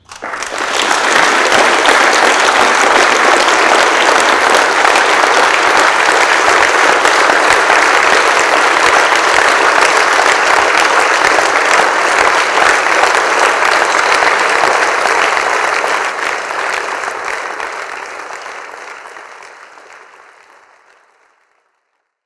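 A large audience applauding, rising quickly at the start into steady, dense clapping that fades away near the end.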